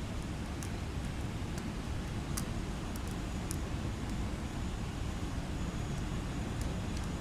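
Steady sleep-noise track: an unbroken noise heavy in deep rumble, thinning toward a soft hiss, with a few faint high ticks scattered through it.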